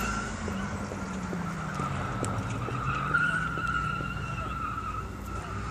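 Sports car driven hard around the test track at a distance, its engine note slowly falling while the tyres squeal steadily through a bend.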